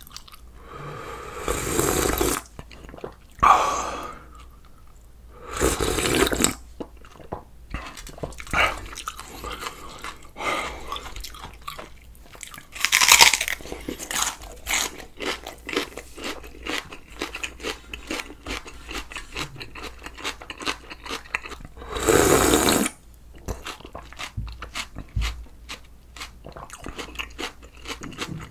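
Close-miked eating of crunchy food: several loud crunching bites, then quick, steady chewing through the second half.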